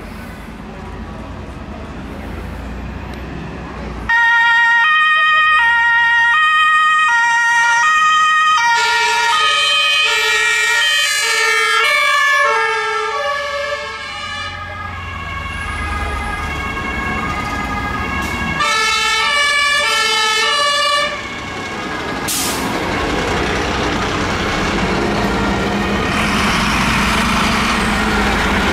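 German two-tone fire engine sirens (Martinshorn) sounding as the trucks pull out on blue lights, starting about four seconds in. For a while two sirens at different pitches overlap, and later there is one more short blast. Between and after the sirens the diesel engines of the passing fire trucks run, with a short hiss partway through.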